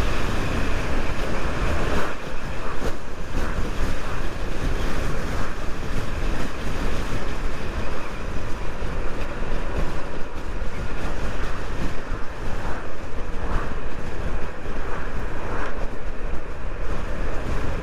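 Steady rush of wind over the microphone and tyre noise from a Zero SR/F electric motorcycle ridden at about 40 to 55 mph, with no engine note because the bike is electric.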